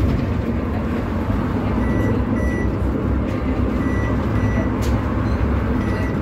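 Cabin noise of a battery-electric Scania/Higer Fencer F1 bus driving at speed: a steady low road and tyre rumble. Pairs of short high beeps come about every two seconds, and there is a single click about five seconds in.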